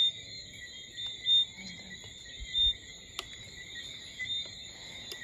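Steady, high-pitched night chorus of crickets, with a few short low thumps close to the microphone in the first three seconds.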